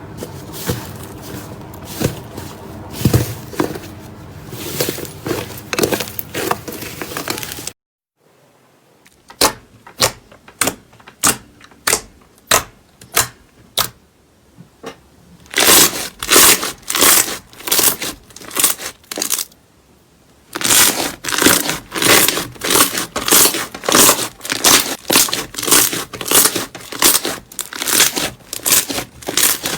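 Slime being squeezed, poked and stretched by hand, making a string of sharp crackling pops and clicks, in places about two a second.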